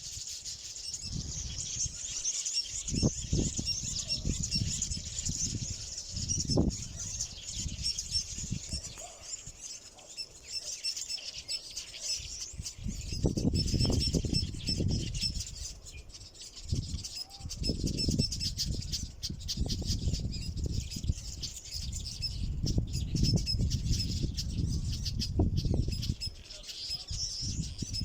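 A village weaver colony chattering: a dense, continuous din of many overlapping high buzzy calls from the males at their nests. Irregular low rumbling gusts rise and fall beneath it and are the loudest sound at times.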